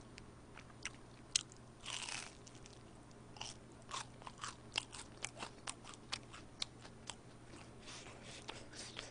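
A fried, breaded squid ring being bitten and chewed close to the microphone. There is a louder crunching bite about two seconds in, then a run of small crisp crunches as it is chewed.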